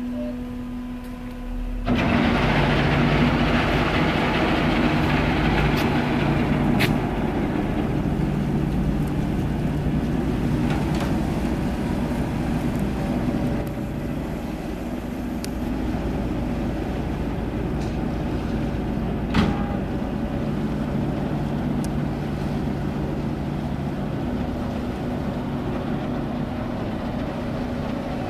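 Diesel engines of the Adler-Express catamaran ferry running as it pulls away from the pier. About two seconds in they throttle up with a sudden rush of noise over a low hum, which settles after several seconds into a steady drone as the ferry manoeuvres. A few sharp clicks are heard.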